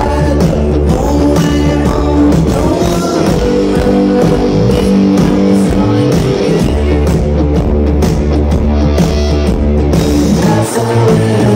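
Live rock band playing loud, with electric guitars, bass, keyboards and drum kit, heard from the crowd in front of the stage.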